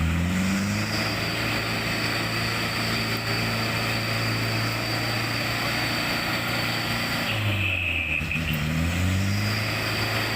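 Truck's diesel engine working under load on a steep, rough track. It holds a steady drone, and its revs rise and fall at the start and again near the end.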